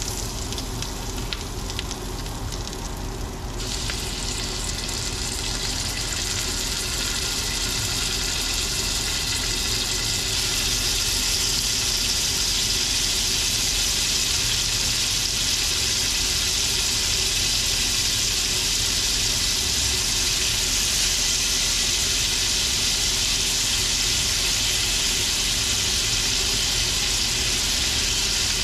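Garlic butter sizzling in a stainless steel frying pan, a steady hiss that rises a few seconds in and then holds. Raw shrimp are stirred and laid into the hot butter with tongs.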